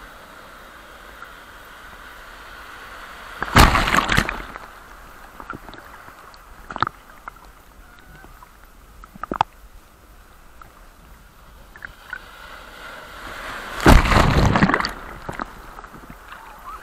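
Big ocean waves breaking: two loud crashes about ten seconds apart, the second building up for a couple of seconds before it hits, with a steady wash of sea between them and a few short sharp splashes.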